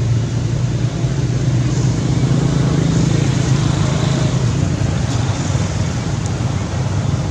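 Steady low rumble of a vehicle engine running, with an even hiss above it.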